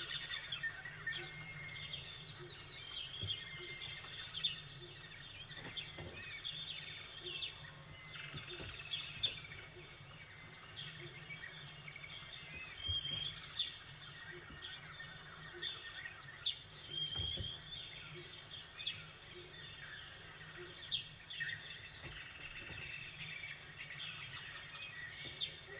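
Many small birds chirping and calling, with overlapping short chirps and brief trills throughout, over a steady low background rumble.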